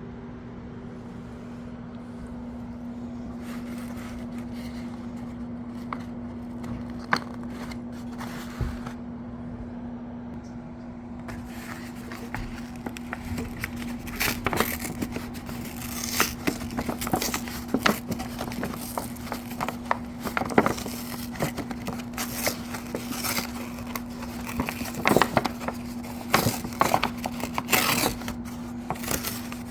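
Packaging being handled and opened: scattered rustles and scrapes at first, then from about eleven seconds in a dense run of crinkling, scraping and tearing with sharp clicks. A steady low hum runs underneath.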